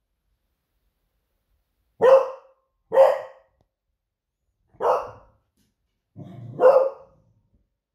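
Beagle giving four alert barks, about a second or two apart. The last bark rises out of a low rumble.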